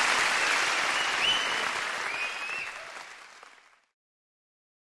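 Live concert audience applauding, fading away over about the last second and cutting to silence a little under four seconds in.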